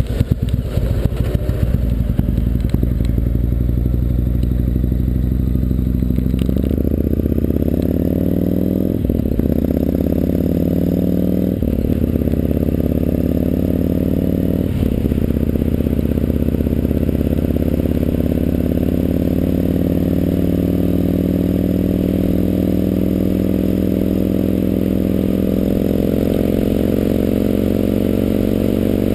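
Yamaha MT-01's big air-cooled V-twin engine accelerating through the gears. Its pitch climbs and drops back at shifts a few seconds apart, then holds at a cruise with the pitch slowly rising. Little wind rush is heard on the chest-mounted camera.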